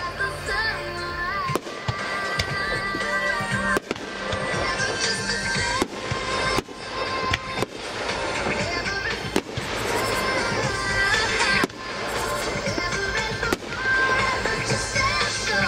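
Aerial fireworks going off in quick succession, with repeated sharp bangs and dense crackling. Music plays underneath.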